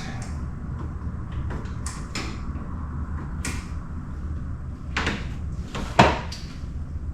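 Scattered clicks and knocks of hand work on the truck, the sharpest about six seconds in, over a steady low hum.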